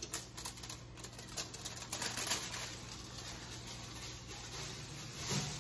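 Aluminum foil crinkling and crackling as a foil-lined load of French toast sticks is handled, a quick run of small clicks over the first couple of seconds. It then settles to a low steady hum, with a soft thump near the end.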